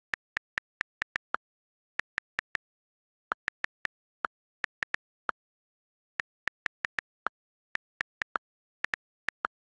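iPad on-screen keyboard key clicks as letters are typed, in an uneven typing rhythm of a few clicks per second with short pauses between bursts. A few of the clicks are lower in pitch than the rest.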